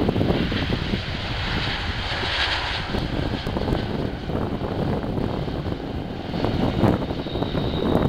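Jet engines of an Airbus A330 airliner rolling out along the runway after landing: a steady jet rush, with an uneven low rumble beneath it.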